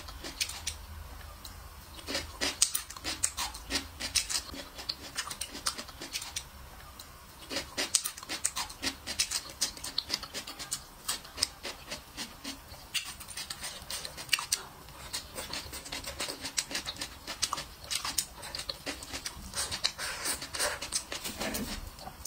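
Close-miked chewing of roast poultry: wet mouth clicks and smacks coming in runs, with a few short pauses between bites.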